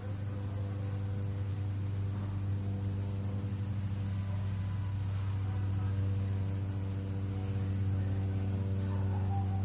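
Steady low buzzing drone of bees working flowering shrubs, with a wavering buzz rising and falling near the end as one passes close.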